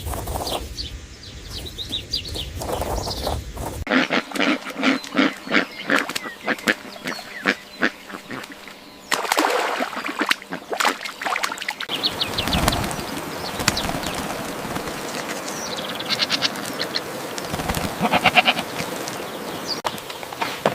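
A string of short farm-animal recordings joined by abrupt cuts: animal calls mixed with many short clicks, the background changing every few seconds.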